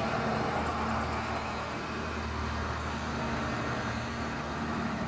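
Hyundai 220LC-9A excavator's diesel engine running steadily, a constant low hum.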